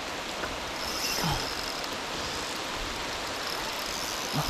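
Heavy rain falling steadily on a pond's surface, a constant hiss, with a couple of brief low bumps about a second in and near the end.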